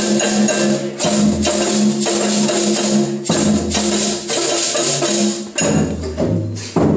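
A live percussion-led band playing: tambourine and shakers over drums and held low notes. About five and a half seconds in, the shaker sound thins out and deeper drum strokes take over.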